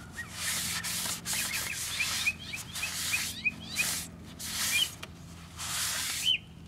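A rag wiping back and forth over the cigarette-tar-coated paper schematic glued inside a console stereo cabinet, making about six rubbing strokes.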